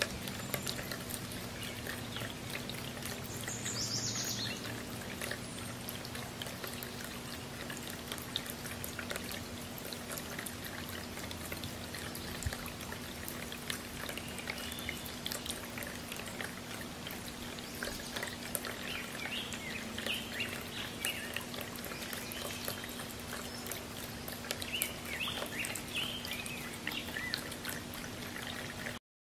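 Bubbler fountain in a ceramic birdbath splashing and trickling steadily, with a steady low hum underneath. A few short bird chirps come through now and then.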